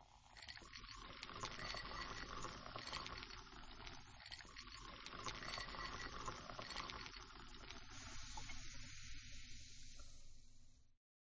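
A steady crackling hiss, like frying or static, that starts abruptly and cuts off suddenly near the end.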